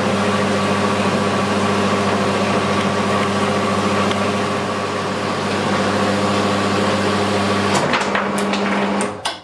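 Small horizontal metal-cutting bandsaw running steadily with a low motor hum, its blade sawing through a clamped stack of 10 mm square tool-steel bars. Near the end the hum changes, there are a couple of clicks, and the saw stops suddenly as the cut is finished.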